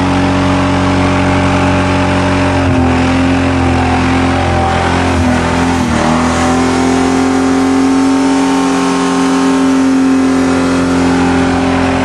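Ford Thunderbird's engine held at high revs with the gas pedal pushed hard, running steadily and strongly, with brief dips in pitch about three and six seconds in.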